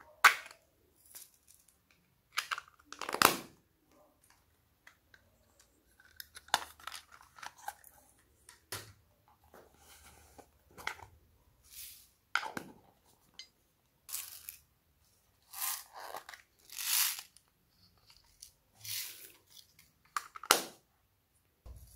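A series of short crinkly tearing and crunching noises as hands peel open and handle small plastic slime containers, about a dozen separate bursts, the loudest just after the start and about three seconds in.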